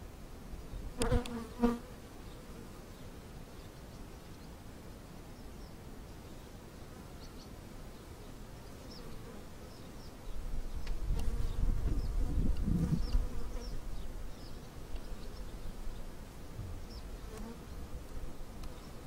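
Honeybees buzzing over an open hive. A louder buzz comes close by about a second in, and a low rumble joins from about ten seconds in for a few seconds.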